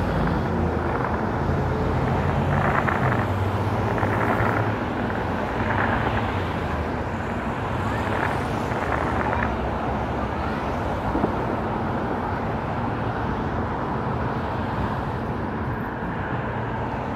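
Steady low rumble of vehicle traffic, with a hum from engines and a few faint brief noises over it.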